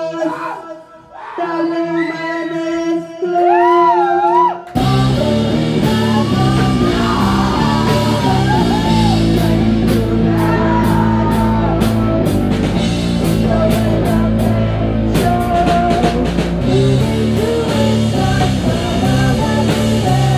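Live rock band with a woman singing: a sparse opening of voice and held guitar notes, then about five seconds in the full band comes in suddenly with loud guitar and drums under the singing.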